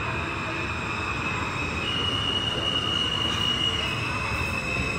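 New York subway F train entering an underground station: a steady rumble under a high wheel squeal, whose pitch steps up about two seconds in and drops back a little before the end.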